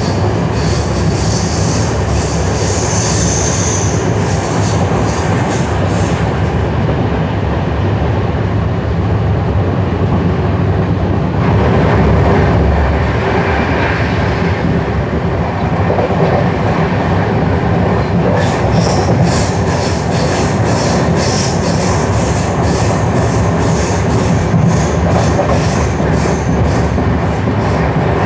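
Passenger express train running at speed, heard from a coach window: a steady rumble of wheels on rail mixed with rushing air. A rhythmic clatter of wheels over rail joints comes in the first few seconds and again through the second half, with a brief high wheel squeal about three seconds in.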